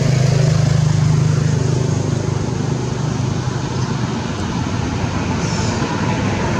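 A motor engine running steadily nearby, a low hum that is strongest for the first two seconds and then eases, over a steady outdoor noise.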